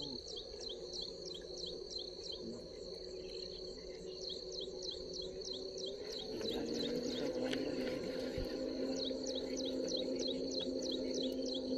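Insects in a high, steady cricket-like trill, with short falling chirps repeating about three times a second. Under them a low steady hum rises slightly in pitch and grows louder about six seconds in.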